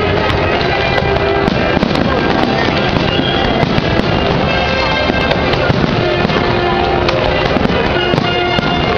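Fireworks display crackling and popping without a break, mixed with loud music.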